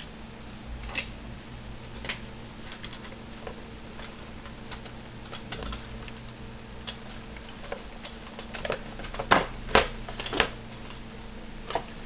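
Hard plastic Hasbro Iron Man 2 toy helmet being handled and pulled on: scattered clicks and knocks, the loudest three coming close together about nine to ten seconds in, over a steady low hum.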